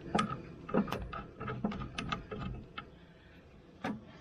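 Hand ratchet wrench clicking in short, uneven strokes as bolts are tightened down on the backhoe, with a lone click near the end.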